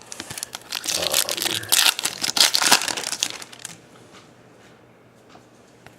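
Foil trading-card pack wrapper crinkling and tearing as it is opened, a dense run of crackles for about three and a half seconds, then it goes quiet.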